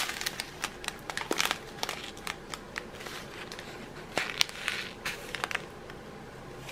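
Plastic zip-lock bags full of round diamond-painting drills being handled: crinkling of the plastic with many small scattered clicks as the beads shift inside, a little busier about four seconds in.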